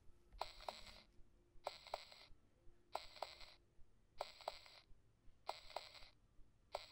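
Heartbeat sound effect played from a horror sound-effects box's small speaker: faint paired lub-dub beats repeating steadily, a little less than once a second and a quarter, with no deep bass.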